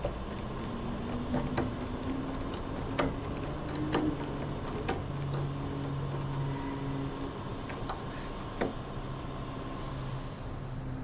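Small screw being driven by hand with a screwdriver into a metal bracket on wood, giving scattered light clicks and ticks at irregular intervals. A steady low hum runs underneath.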